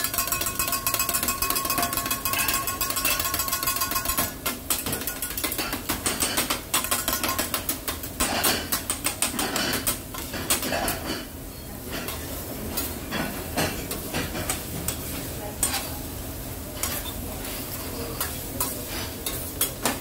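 Metal spatulas clacking and scraping on a hot teppanyaki griddle, with food sizzling underneath. Many quick clicks come in dense runs over a steady hiss, busiest in the first few seconds.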